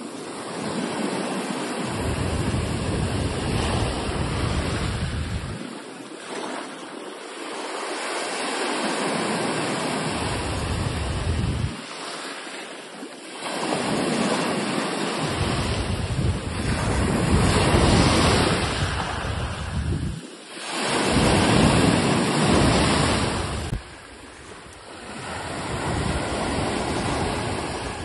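Sea waves breaking and washing ashore in surges that swell and fall every few seconds. A low wind rumble on the microphone comes and goes.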